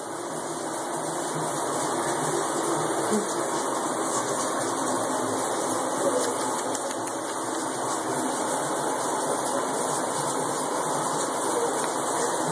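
Shower water spraying steadily.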